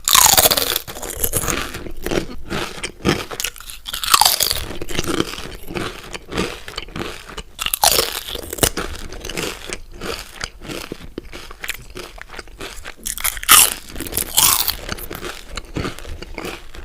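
Potato chips being bitten and chewed close to the microphone: four loud crunching bites a few seconds apart, with steady crackly chewing between them.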